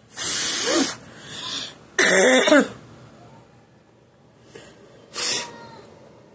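Three loud, harsh bursts of a person's breath right at the microphone, with fainter ones between.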